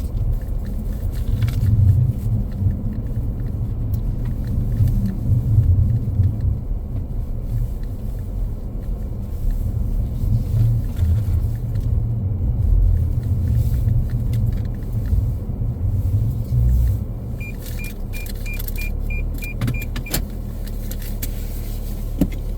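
Steady low rumble of a car in motion. Near the end, a quick run of about eight short high beeps.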